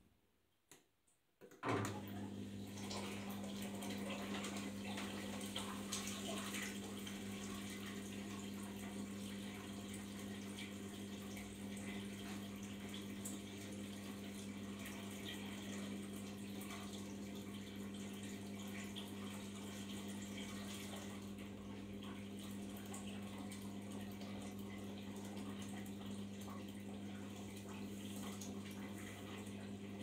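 Arçelik 5083 front-loading washing machine at rest with water running through it, over a steady electric hum that starts suddenly a couple of seconds in.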